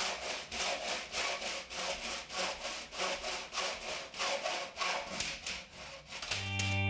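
Hacksaw cutting through a length of metal lighting track, steady back-and-forth strokes at about three a second. Near the end the sawing stops and a guitar chord of background music comes in.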